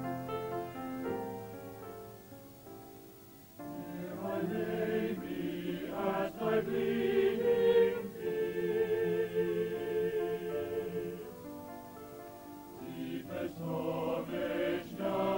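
Salvation Army songster choir of men and women singing a hymn with piano accompaniment. The piano sounds softly alone at first, and the full choir comes in suddenly about three and a half seconds in, swelling and then easing back.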